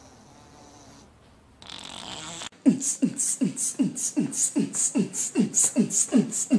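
A quick, even run of about eleven short, buzzy, fart-like toots, each dropping in pitch, starting about two and a half seconds in, in time with a dog climbing a staircase.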